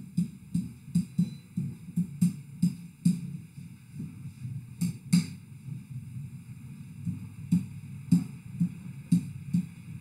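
Stylus knocking and scraping on an interactive whiteboard as short arrow strokes are drawn: an irregular run of dull knocks, a few each second, with an occasional sharper click.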